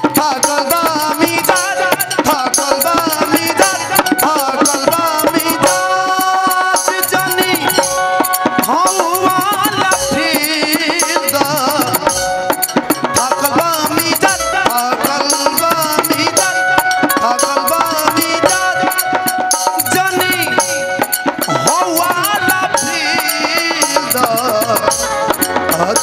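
Live Bhojpuri folk song: a man sings into a microphone over hand-drum percussion and a melody instrument holding steady notes, all amplified through a PA.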